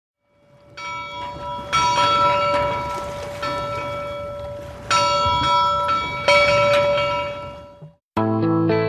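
A church bell tolling: about five strikes at uneven intervals, each one ringing on and slowly dying away, with the last one fading out near the end.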